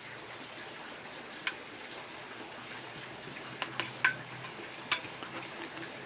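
Caulking gun clicking a few times, three of them close together in the middle, as silicone caulk is squeezed out, over a steady faint hiss.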